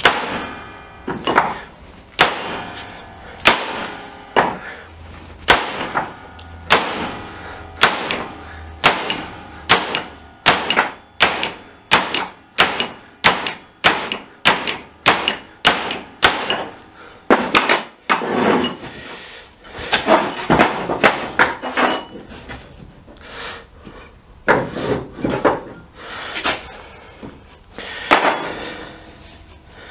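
Hammer striking a centre punch into a steel shaft-coupler flange, a series of sharp metallic taps that speed up to about two a second midway. The punch marks record which side each flange was attached to, so the shaft goes back together in balance. Past the midpoint the strikes give way to a few seconds of rougher handling noise, with a few more blows near the end.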